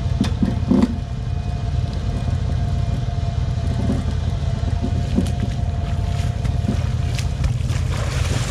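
A vehicle engine running with a steady low rumble, with a few short knocks in the first second.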